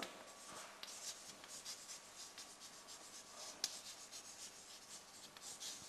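Chalk writing on a blackboard: faint scratching of the chalk stroke by stroke, with a few light taps.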